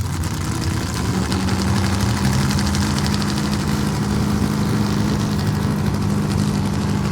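Semi truck engine idling steadily, with a fast, even ticking over the low drone; a higher hum joins in about a second in.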